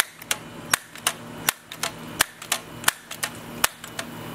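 Crosman 760 Pumpmaster multi-pump air rifle being pumped up, its forearm pump stroked back and forth to build air pressure for the shot. Each stroke gives a sharp clack, about one every three-quarters of a second, with a smaller click between strokes.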